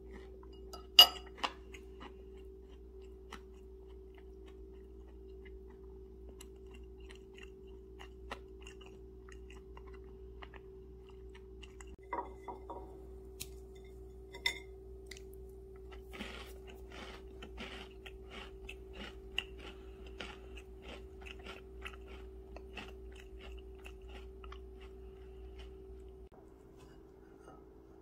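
Close-miked eating sounds: a sharp clink of a fork on a ceramic plate about a second in, then a pecan cookie snapped apart by hand. Crunchy chewing, several crunches a second, fills the second half.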